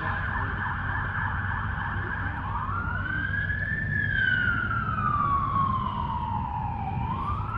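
Emergency vehicle siren: a rapid yelp for the first couple of seconds, then a slow wail that rises, falls over about three seconds and starts rising again near the end, over a steady low rumble.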